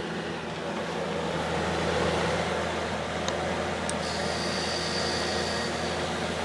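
Magic Chef dehumidifier running on its fan alone, a steady hum and whoosh, with the compressor cut out: the unit short-cycles, its compressor shutting off every couple of minutes. Two small clicks come about three seconds in, followed by a faint high tone.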